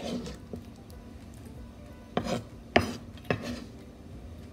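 Kitchenware being handled: a few short knocks and clinks of utensils and dishes, three of them close together in the middle.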